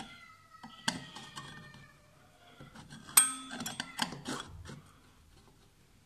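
Metal tool clicking against a harmonium's brass reed, the plucked reed tongue ringing briefly at a steady pitch after each click, loudest about three seconds in. The C reed's tongue is being bent away from its frame, which makes the note speak late.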